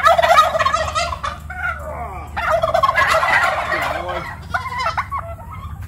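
Domestic turkey gobbling: two rapid rattling gobbles about two seconds apart, followed by a few shorter calls.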